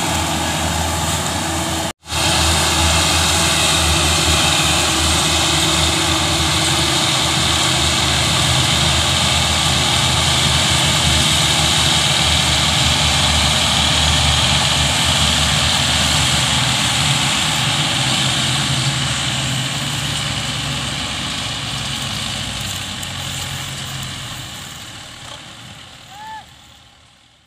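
Several tractors' diesel engines running together under heavy load, hauling a loaded sugarcane trolley, in a steady drone. The sound cuts out for an instant about two seconds in, then fades away over the last few seconds.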